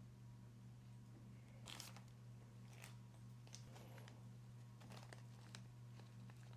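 Faint clicks and scrapes of small parts being handled, a handful of short sounds spread across a few seconds, over a steady low hum.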